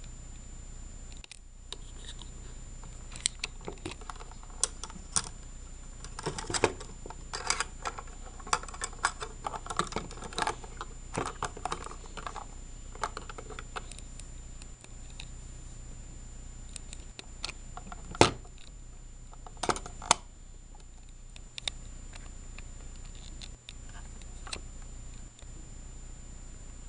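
Small plastic toys handled on a table: irregular clicks, taps and light clatter as a Littlest Pet Shop figure and a pink plastic playset are moved and knocked together, busiest in the first half, with a few sharper knocks later. A steady faint hum with a thin high whine runs underneath.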